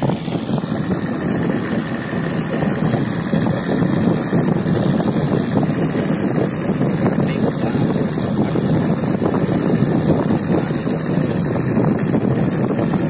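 Boat engine running steadily while the boat moves through the sea, with wind buffeting the microphone and water rushing past the hull.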